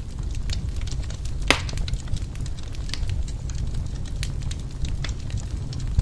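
Log fire crackling in a fireplace: scattered sharp snaps over a steady low rumble, with one louder pop about a second and a half in.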